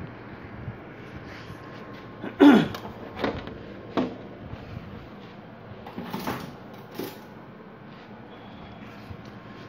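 A few short knocks and bumps of handling, about five in all, the loudest about two and a half seconds in.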